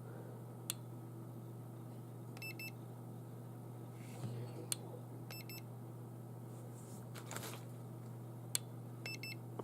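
Infrared thermometer beeping as it takes readings: three short double beeps a few seconds apart, with faint clicks of its trigger button in between. The beeps signal completed temperature measurements taken on a hand.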